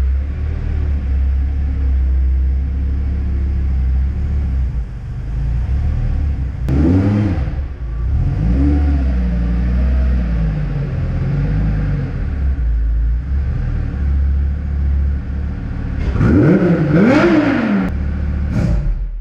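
Lamborghini Gallardo Superleggera V10 engine running with a deep steady rumble, revved up and dropping back about seven seconds in and again, harder, near the end.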